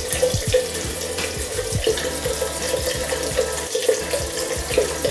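Bathroom tap running steadily into a sink, with the irregular light scrubbing of a toothbrush being worked at a small dog's teeth.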